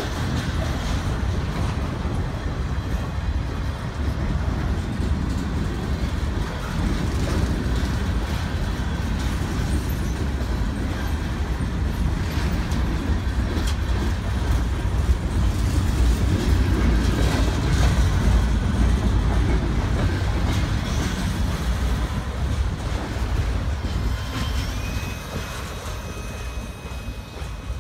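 Freight train cars rolling past: a steady, loud rumble of steel wheels on rail with scattered clacks, growing a little louder midway and then dropping off near the end as the last cars go by.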